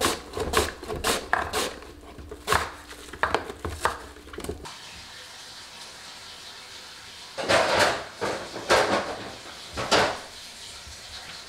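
Radish being shredded on a wooden hand grater with a metal blade panel, a sharp scraping stroke about twice a second, stopping abruptly about four and a half seconds in. After that, a low steady hiss with a few louder short noises.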